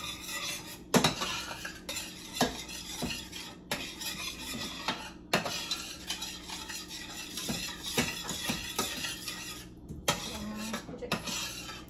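A utensil stirring marinara sauce in a pot on the stove, scraping and clinking against the pot with irregular knocks, the loudest about a second in.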